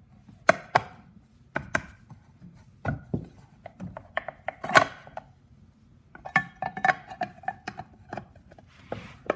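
Chainsaw side cover being fitted by hand over the bar and diamond chain: a run of sharp clacks and knocks, the loudest about halfway through, with a spell of ringing metallic clinks about two-thirds of the way in.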